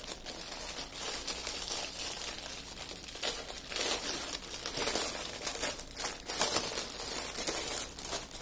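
Clear plastic packaging crinkling and rustling in irregular bursts as a bag stuffed with small plastic packets of drills is handled and unwrapped.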